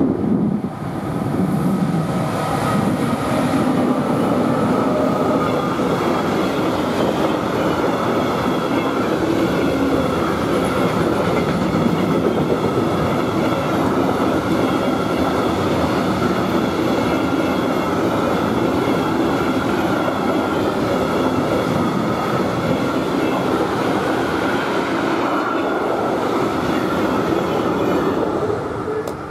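A long coal train of hopper wagons, hauled by two DB Schenker class 189 electric locomotives, passes close by. Its wheels keep up a steady rumble on the rails, with faint high ringing tones. The sound swells about a second in and drops away quickly near the end as the last wagon goes by.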